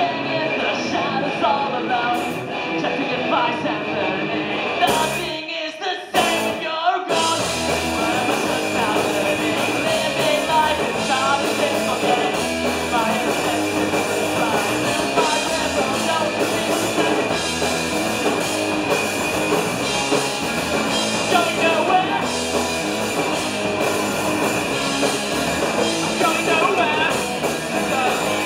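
Punk band playing live: electric guitar, drum kit and sung vocals. There is a short break about five seconds in before the band comes back in.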